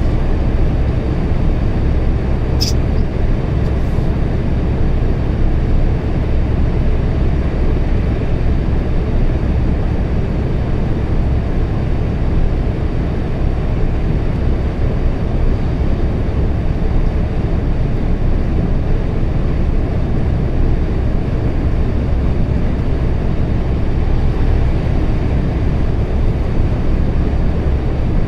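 Steady low rumble of a truck's engine and tyres on the road, heard from inside the cab while cruising at speed, with one short click about three seconds in.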